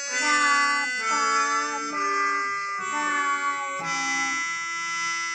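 Portable electronic keyboard playing a slow melody one note at a time, each note held steady before stepping to the next; about two-thirds of the way through a lower note is held underneath the melody.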